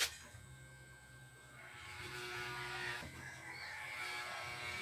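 Corded electric hair clippers buzzing steadily after a sharp click at the very start. The buzz grows louder and rougher from about two seconds in as the clippers run over the hair.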